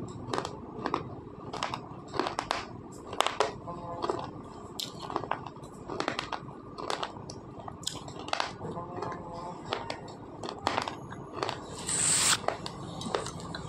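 Slate pencil being chewed: irregular sharp crunches, about one or two a second, with a louder, hissier crunch about twelve seconds in.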